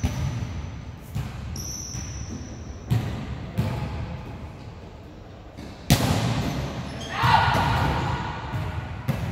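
Volleyball rally in a gym: sharp slaps and thuds of the ball off hands and the floor, echoing in the hall, with the loudest hit about six seconds in. Sneakers squeak on the court early on, and voices call out just after the big hit.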